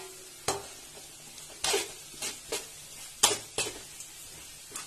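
Steel ladle scraping and knocking against a stainless steel pot as a thick onion and chilli masala is stirred: about seven irregular strokes, the loudest a little past three seconds in. A faint sizzle of the masala frying in oil runs underneath.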